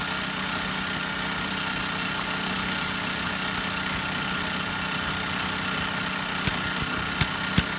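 Homemade LEGO Technic two-stroke combustion engine running under spark ignition, firing on every revolution in a steady mechanical clatter, with a few sharper knocks near the end.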